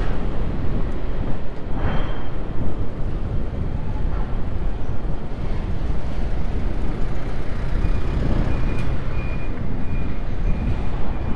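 Steady wind rumble buffeting an action camera's microphone while cycling, with a brief swell about two seconds in and a faint, broken high tone of short beeps from about eight seconds in.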